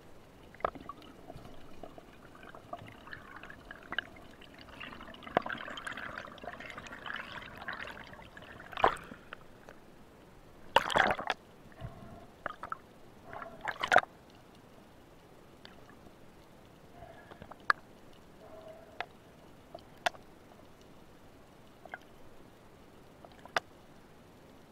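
Underwater sound picked up through a camera housing: scattered sharp clicks over a low background, with a few louder noisy bursts of water movement around the middle.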